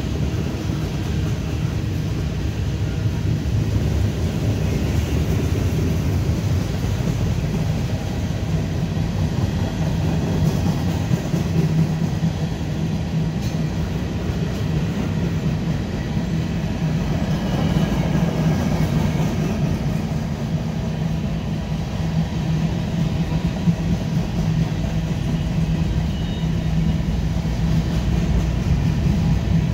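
Freight train's covered hopper and tank cars rolling past, steel wheels on rail making a steady rumble with a constant low hum.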